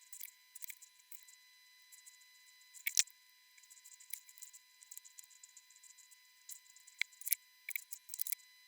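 Sparse small clicks and ticks of hand tools working at a circuit board during soldering. The sharpest click comes about three seconds in and a cluster comes near the end, over a faint steady high whine.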